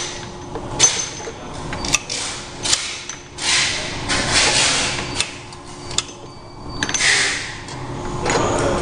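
MT-50 semi-automatic round-bottle labeling machine in use: clicks and knocks as vials are set into the machine and its roller is worked, over a faint steady hum. There are two longer rustling hisses, one about three seconds in and one near seven seconds.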